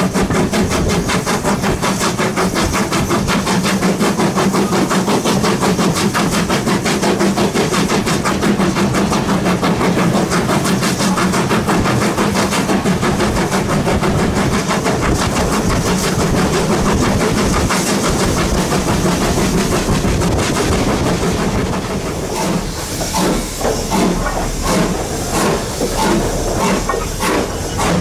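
Steam locomotive working a train, with steam hiss over a fast, even beat. About 22 seconds in it drops a little and thins out into separate, spaced knocks.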